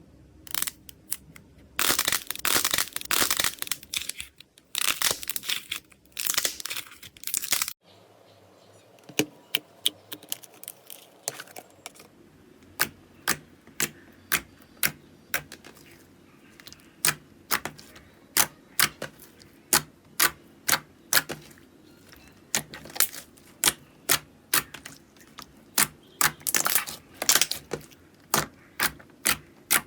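Slime being handled close to the microphone. The first part is a few seconds of dense crackling. After an abrupt change at about eight seconds comes a long string of separate sharp pops and clicks, one or two a second, bunching together near the end.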